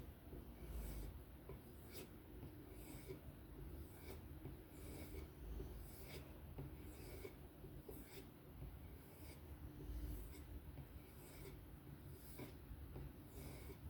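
Faint, steady strokes of a folding knife blade drawn along a strop loaded with 1 micron compound, about one to two passes a second: stropping to refine the edge after the stones.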